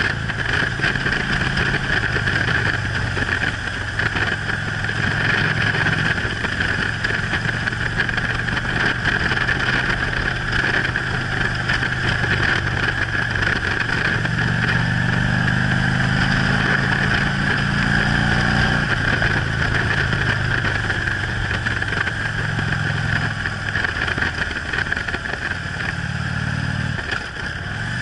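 Harley-Davidson touring motorcycle's V-twin engine running at road speed, with wind and road noise. The engine note shifts with the throttle midway through, drops briefly near the end, then picks up again.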